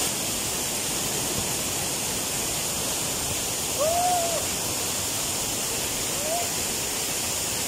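Steady rushing of a waterfall pouring into its plunge pool, with two short faint calls, one about four seconds in and another a little after six seconds.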